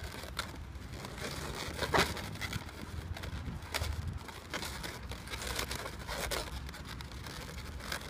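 Latex modelling balloons being handled and twisted together, rubbing and squeaking against each other in several short sharp scrapes, over a steady low rumble.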